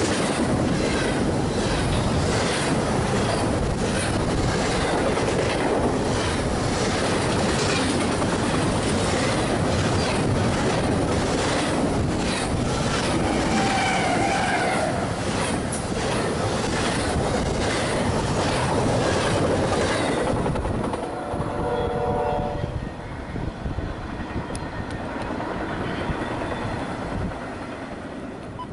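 Double-stack intermodal freight train passing close by, its wheels clicking over the rail joints in a steady repeated rhythm over a loud rolling rumble, with a CSX diesel locomotive going by about halfway through. About twenty seconds in the end of the train passes and the sound drops to a fainter, fading rumble.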